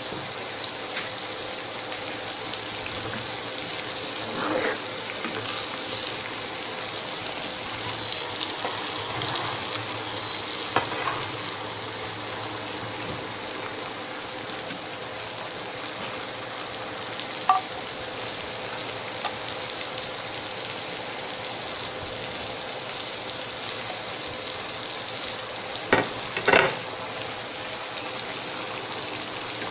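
Pork steak and garlic frying in melted butter in a nonstick pan: a steady sizzle, with a few light knocks, the loudest pair near the end.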